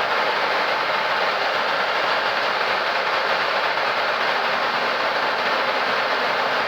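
Steady rushing cockpit noise of a Boeing 737 MAX with its CFM LEAP-1B engines running as the thrust levers are advanced for takeoff and the engines spool up toward the stabilized setting; a faint low hum comes in about halfway through.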